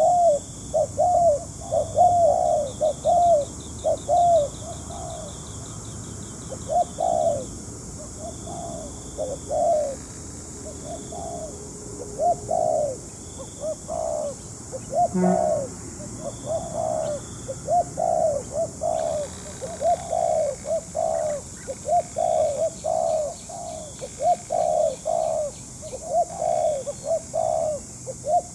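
Spotted doves cooing over and over, in quick runs of short, low coos.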